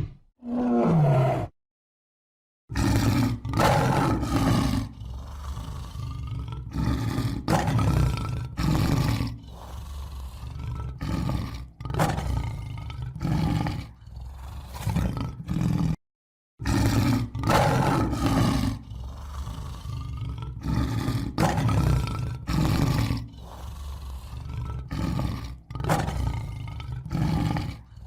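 Tiger roaring and growling in a string of short, repeated calls. Twice the calls cut off abruptly to silence, about a second and a half in and about sixteen seconds in.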